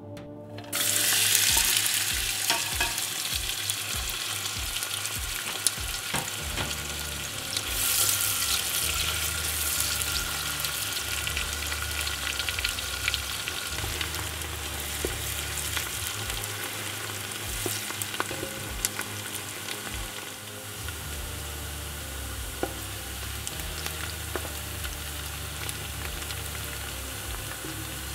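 Chopped onions going into hot oil in a stainless steel pot: a sudden loud sizzle starts about a second in, then they fry steadily with small crackles while being stirred with a wooden spatula. The sizzle surges again briefly and slowly eases toward the end.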